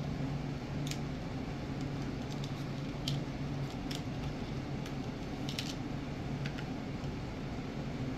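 Light, scattered clicks and taps of small knife screws and parts being handled in a plastic parts box with a small screwdriver, about ten irregular ticks over a steady low hum.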